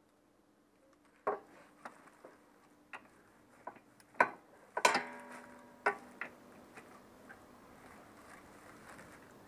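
Oil filter being worked loose by hand and tool under a motorcycle: a string of irregular metal clicks and knocks, with one louder clank about five seconds in that rings briefly.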